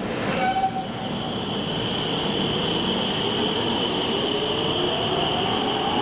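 Electric train pulling away: a brief clatter about half a second in, then a motor whine slowly rising in pitch as it gathers speed, over a steady high-pitched squeal and rail noise.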